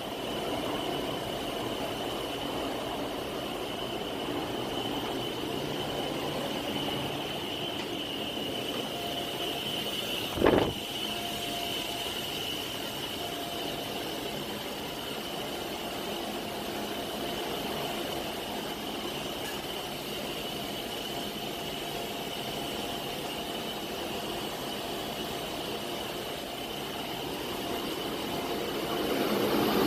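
Steady drone of a ship's engine room, with the large diesel generator sets running and a steady high whine above it. A single short knock about ten and a half seconds in, and the noise grows louder near the end.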